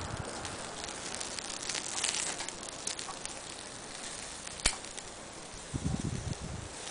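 Small wood fire crackling with scattered small pops, one sharp snap about two-thirds in, and a low bump near the end.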